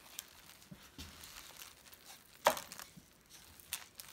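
Wooden spoon spreading soft dressing in a crock pot lined with a plastic slow-cooker liner: intermittent crinkling of the plastic and soft scraping, with one sharper, louder crinkle about two and a half seconds in.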